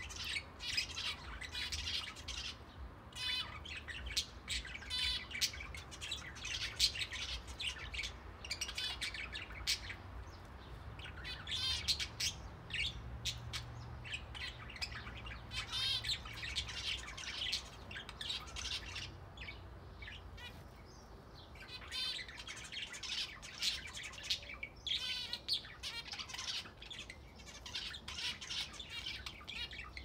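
A mixed flock of budgerigars and zebra finches chirping and chattering almost continuously, with a couple of short lulls, over a low steady hum.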